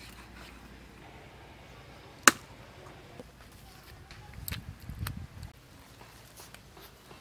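A heavy cleaver chopping stingray on a wooden log chopping block: one sharp, loud chop about two seconds in, then a few softer knocks and low thuds a couple of seconds later.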